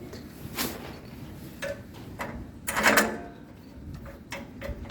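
Clicks and knocks of metal parts being handled as the wood chipper's removable front handle is refitted and its two small fixing screws put back in, with a louder knock about three seconds in and a run of small ticks near the end.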